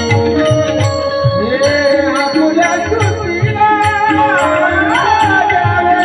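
Marathi devotional kirtan music: a voice sings a long gliding, ornamented line over a steady beat of low drum strokes and crisp high cymbal-like clicks, with held notes sounding underneath.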